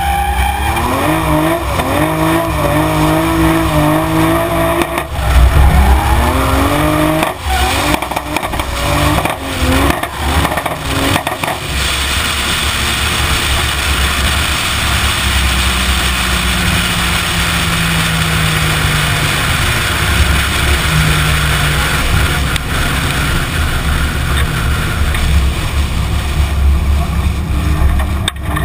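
Toyota Supra's 2JZ straight-six engine revving up and down repeatedly for about the first twelve seconds, then running steadily at speed under a rushing wind noise on an outside-mounted camera.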